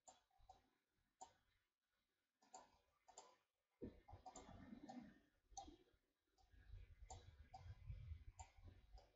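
Faint computer mouse button clicks, a series of sharp, irregular clicks a few per second, with a low rumble of handling noise under them in the second half.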